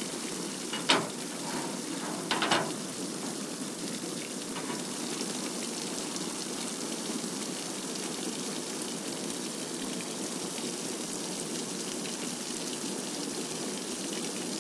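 Water gushing from the hatch of a fish-transport tank and splashing across a metal trailer bed, a steady rushing splash as the tank is emptied to release its fish. Two sharp knocks stand out about one and two and a half seconds in.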